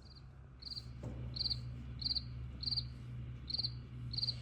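Cricket chirping in a slow, even rhythm: about seven short chirps, one every two-thirds of a second, over a low steady hum. It is the comic 'crickets' of an awkward silence after a speech.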